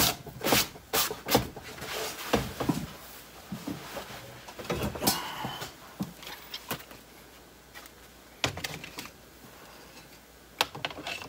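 Workbench handling noise: a run of sharp clicks and knocks with some rustling. Most of it falls in the first few seconds, with more knocks about eight and a half seconds in and near the end. No grinder is running.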